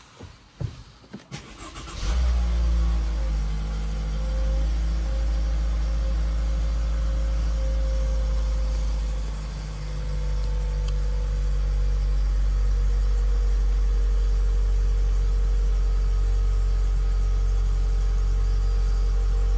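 Toyota Esquire's 2.0-litre four-cylinder petrol engine being started: a few clicks, then a brief crank and it catches about two seconds in. It settles into a steady idle.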